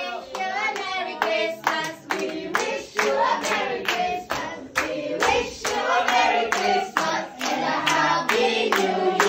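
A group of people singing together while clapping along in a steady rhythm, about two to three claps a second.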